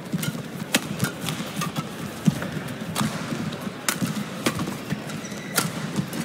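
Badminton rally in a men's doubles match: a quick, irregular run of sharp cracks as rackets strike the shuttlecock back and forth, with the players' footsteps on the court beneath.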